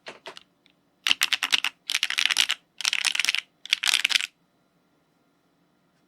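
Typing on a Constance TKL mechanical keyboard with Chosfox × ragna switches and GMK Shaded keycaps: a few keystrokes, then four quick runs of rapid keystrokes, with the typing stopping a little past four seconds in.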